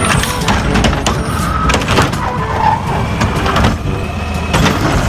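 Plastic toy garbage truck being handled, clattering and scraping, with many small knocks.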